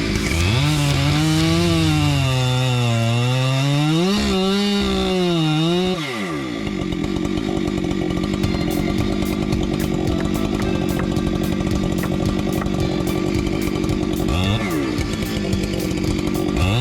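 Two-stroke chainsaw cutting into a tree trunk, its engine pitch sagging and recovering repeatedly under load for about six seconds. It then runs more steadily, with two brief revs near the end.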